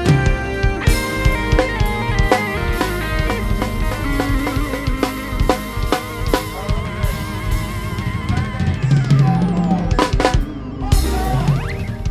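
Instrumental music: a drum-kit beat with bass drum and snare under held melodic notes, with a short swooping pitch glide near the end.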